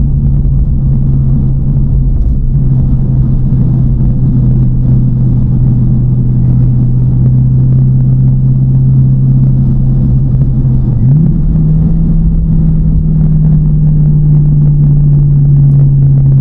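TVR Chimaera's tuned 4.65-litre V8, with race cam and pre-cats removed, running steadily while the car is driven, a constant low engine drone. The engine note steps up slightly in pitch about two-thirds of the way through and holds there.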